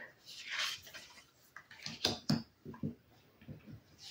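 Tarot cards being handled on a wooden tabletop: a soft sliding swish, then several light taps and clicks as cards are picked up and laid down.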